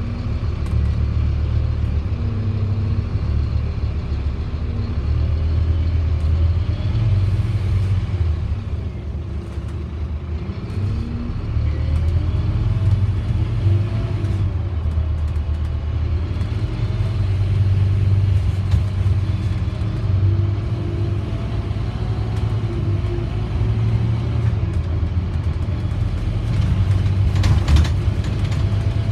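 Scania OmniDekka double-decker bus on the move, heard from inside the upper deck: a steady low diesel engine rumble with faint whining tones that rise and fall as it speeds up and slows. Near the end there is a short rattle.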